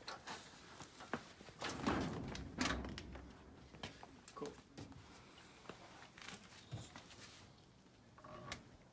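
Scattered metal clunks and knocks as a V8 engine hanging from a hoist is shifted and settled into a car's engine bay, with a louder scraping rush about two seconds in.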